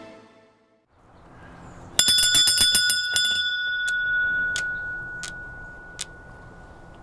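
Wall-mounted porch bell rung by pulling its cord: a fast run of clangs, then four single strikes about two-thirds of a second apart, each ringing on and slowly fading.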